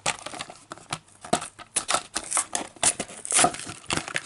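Plastic blister and card packaging of a 1:64 Hot Wheels die-cast car being handled and opened, a run of irregular crackles, crinkles and sharp clicks.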